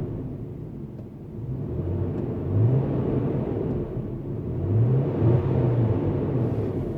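2015 Land Rover LR4's engine revved lightly twice, rising in pitch about two and a half and five seconds in, over a steady rumbling roar from the radiator fan, which the owner finds abnormally loud for a new vehicle.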